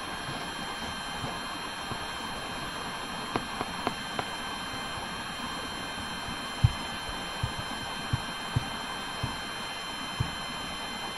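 Room noise: a steady hiss with a faint steady electrical whine, broken by about a dozen scattered soft low thumps, the loudest about six and a half seconds in.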